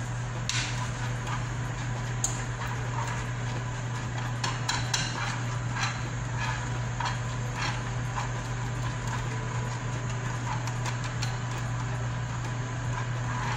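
Metal spoon stirring caramel sauce in a nonstick frying pan, clinking and scraping against the pan in scattered clicks, over a steady low hum.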